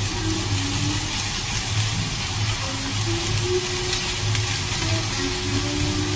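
Gosari (dried fern brake) and minced garlic sizzling steadily as they are stir-fried in a frying pan over medium heat. Background music with a low, regular beat plays along.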